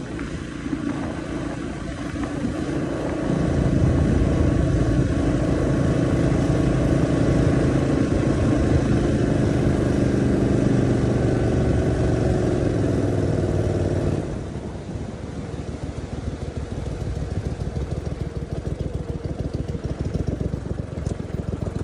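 Tiller-steered outboard motor pushing a boat at speed, the engine note climbing about three seconds in and running steady; about fourteen seconds in the throttle is cut back sharply and the engine sound drops off.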